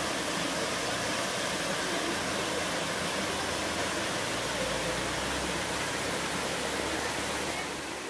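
Steady rush of a small jungle waterfall cascading over rocks into a pool.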